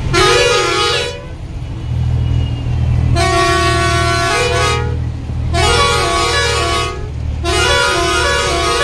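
A truck's musical multi-tone horn playing a repeating tune in four long blasts, over the steady low running of the truck's engine.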